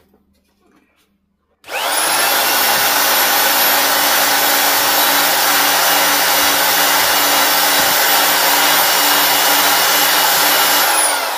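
Evolution 400 W power file (narrow-belt file sander) switched on about two seconds in, spinning up with a rising whine, then running steadily at full speed while its belt sands a weld on steel. It is switched off near the end and winds down with a falling whine.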